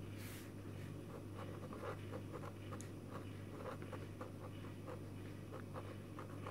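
Sakura Pigma Micron fineliner writing letters on paper: a run of short, faint strokes of the nib on the page. A steady low hum lies underneath.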